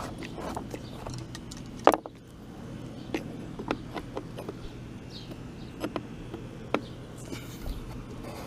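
Scattered clicks and clinks of hand tools, bolts and plastic cover parts being handled while a Stihl BR600 backpack blower is taken apart, with a sharp knock about two seconds in. A low steady hum runs underneath.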